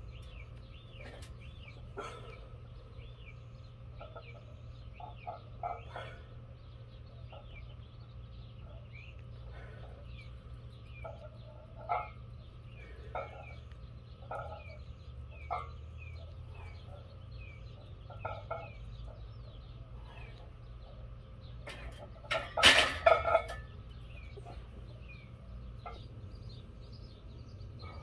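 Chickens clucking on and off, with small birds chirping steadily over a low outdoor hum. A quick cluster of loud knocks and clatter comes a few seconds before the end.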